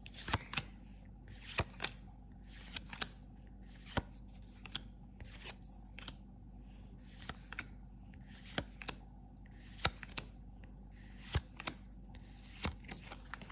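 Dragon Ball Super Card Game cards being moved one at a time through a hand-held stack. Each move gives a short sharp click or slide of card stock, often in quick pairs, about once a second.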